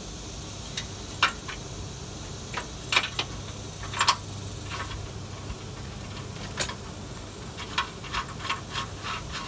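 Sharp metal clinks and taps of hitch mounting bolts and their pull-through wire being worked by hand against a steel truck frame: about ten irregular clinks, with a quicker run of small ones near the end, over a steady low hum.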